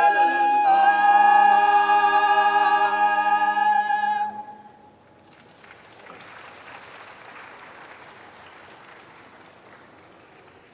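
Chamber choir singing a cappella, holding its final chord, which cuts off about four seconds in. Faint audience applause follows.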